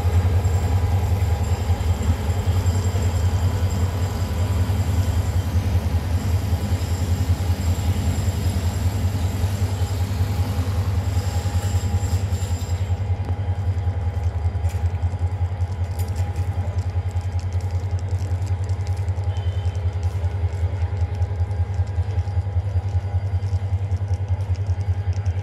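Hyundai Rotem diesel-electric locomotive's engine running with a steady low rumble while shunting a freight train.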